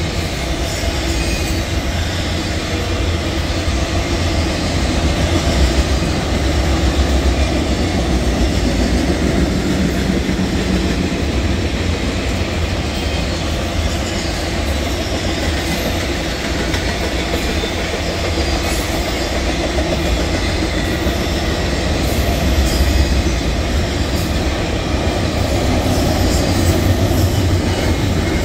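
Norfolk Southern freight train rolling past: a steady rumble of cars with the repeated clicking of wheels over the rails.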